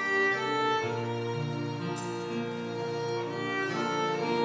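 Live church praise band playing an instrumental introduction: a bowed violin carries the melody in long held notes over acoustic guitar and a sustained keyboard layer.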